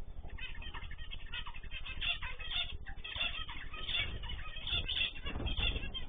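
Many short, overlapping chirps and calls from a mixed aviary of canaries and zebra finches, with wings flapping as birds fly off their perches.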